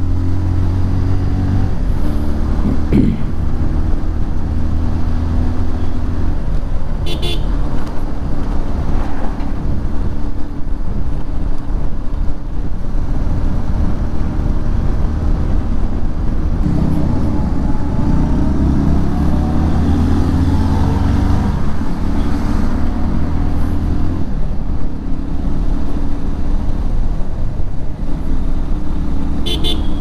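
Bajaj Pulsar 150 motorcycle's single-cylinder engine running while riding, its pitch rising and falling with throttle and gear changes and climbing steadily for a few seconds in the middle. Short horn toots come about seven seconds in and again near the end.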